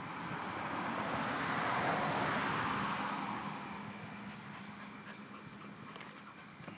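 A passing vehicle's noise swelling, peaking about two seconds in, then fading away, over small sounds of a dog playing with a toy.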